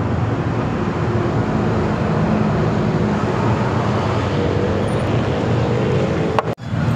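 Steady low rumble of road traffic and running engines with a constant hum, briefly cutting out about six and a half seconds in.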